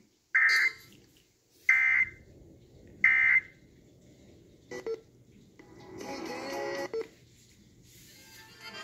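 Three short electronic alert beeps about 1.4 seconds apart, then a brief click and about a second of mixed electronic tones.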